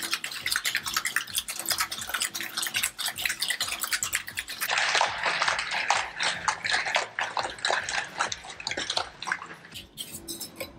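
Ice rattling inside a metal cocktail shaker being shaken hard: a fast, dense rattle that dies away near the end as the shaking stops.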